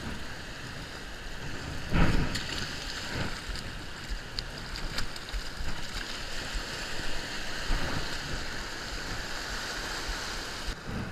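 Small waves washing up and running back over a sandy beach, a steady rushing wash with some wind. A sudden loud knock about two seconds in, and a smaller one about a second later.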